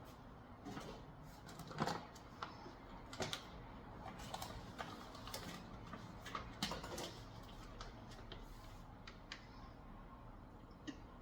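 Scattered light clicks and knocks as lamb loin chops are set by hand into an Instant Pot's inner pot on a trivet.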